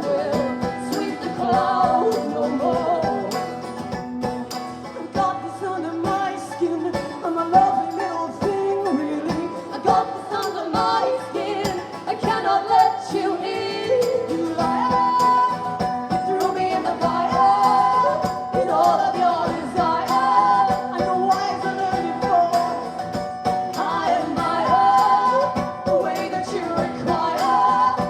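Live band performance of a pop-folk song: women's voices singing over guitars with a steady beat.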